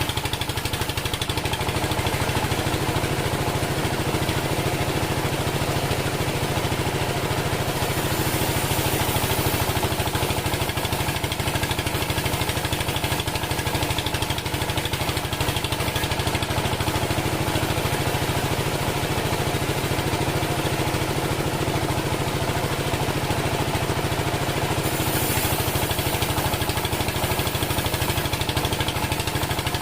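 Engine of a homemade bandsaw sawmill running steadily with a regular low pulse; a steadier higher tone sounds over it from about a second in until near the end.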